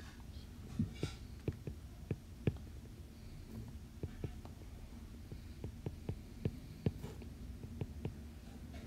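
Stylus tip tapping and stroking on an iPad's glass screen while short strokes are drawn: a run of light, irregular taps, one to three a second, over a low steady room hum.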